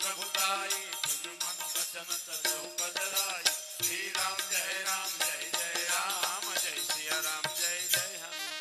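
Indian devotional bhajan music: a dholak drum keeps a quick rhythm under constant jingling of small hand cymbals, with a held melodic line over it.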